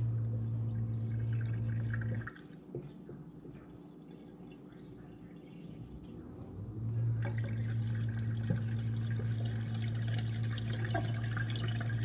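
Garbage disposal motor running with a steady hum while water drains through it; it stops about two seconds in and starts again about seven seconds in. It is draining freely, with no water backing up.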